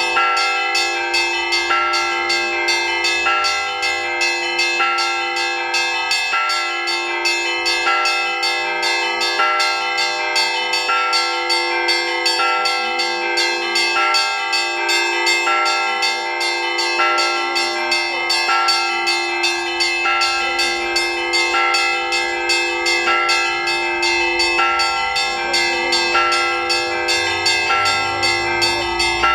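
Russian Orthodox church bells rung in a continuous peal (zvon) calling to the evening service: small bells struck rapidly over a repeating figure of higher notes, with a steady low bell tone sounding beneath.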